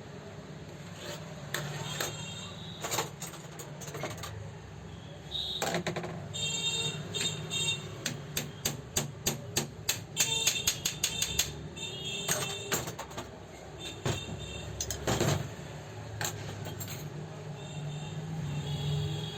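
Irregular metallic clicks and clinks, some ringing briefly, as tools and parts of an old overlock sewing machine are handled and adjusted, coming thick and fast near the middle. A low steady hum runs underneath.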